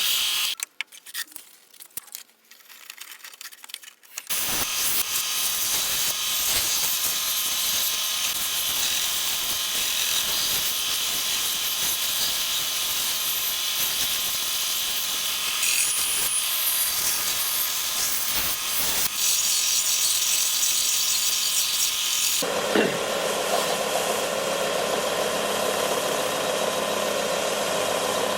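Belt sander running steadily, starting up again after a few seconds' pause near the start; for the last several seconds a rubbing sound joins it as an eraser is pressed against the moving belt to clear clogged sanding dust.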